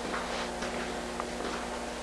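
Steady electrical hum with a few faint soft ticks and rustles.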